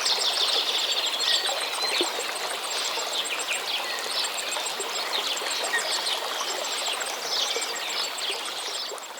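Running stream water with small birds chirping and singing over it, and a thin, very high ticking trill repeating in the background. The sound begins to fade out near the end.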